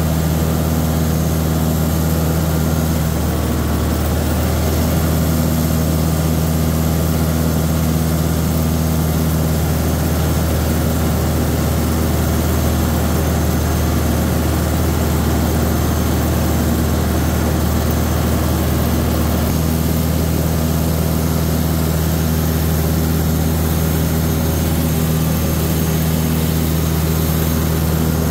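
Tractor engine running steadily at an even pitch.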